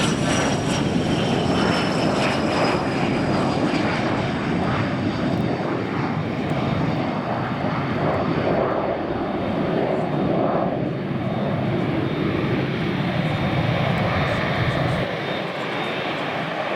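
Gates Learjet C-21A's twin Garrett TFE731 turbofan engines running with a steady jet roar, a thin high whine gliding down in pitch over the first few seconds. The deepest part of the rumble drops away near the end.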